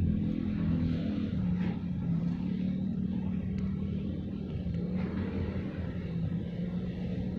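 Low, steady engine rumble with a droning hum that shifts slightly in pitch about a second in.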